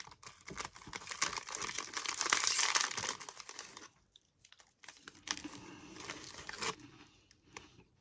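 Plastic snack wrapper crinkling and being torn open around a cream-filled biscuit, a long burst of crackling followed, after a short pause, by a second shorter one.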